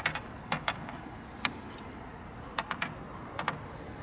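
A series of sharp, irregular clicks and taps, about ten in four seconds, some in quick pairs, over a faint steady hiss.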